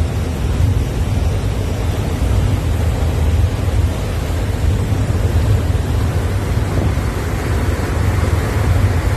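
Ferry under way: a steady low rumble with the rushing of the churning wake, the rushing growing louder near the end.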